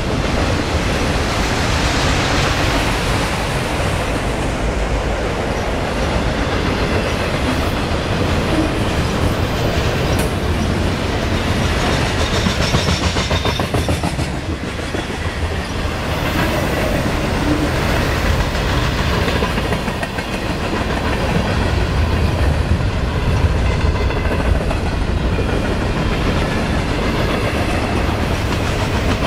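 A long freight train's cars rolling past at speed, steel wheels clicking rhythmically over rail joints above a steady rumble.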